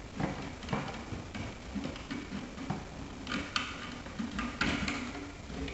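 Irregular clicks, taps and scrapes of a stiff hooked 10-gauge wire being worked through a drywall opening to fish a cable inside the wall. A few louder scraping rustles come past the middle.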